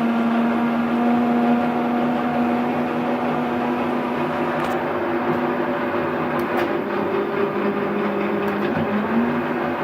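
A large 36x144 engine lathe's motor and spindle gearbox running with a steady whine of several tones, shifted up a gear. The pitch steps up slightly about nine seconds in, and a few faint clicks come in the middle.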